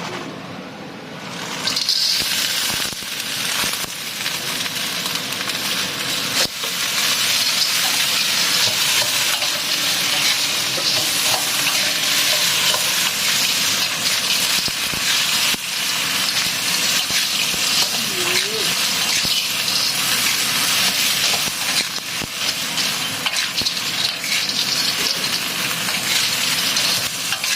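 Food frying in hot oil in a pan: a loud sizzle that starts suddenly about two seconds in as the food goes in, then keeps going, with scattered clicks of a utensil stirring.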